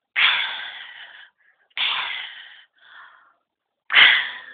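Three shots from an MK23 pistol, each a sharp pop fading away over about a second, roughly two seconds apart.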